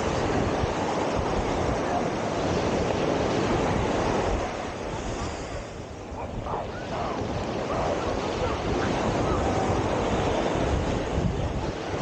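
Wind buffeting the microphone over the steady wash of surf. It eases briefly about halfway through, and faint voices of nearby people come through.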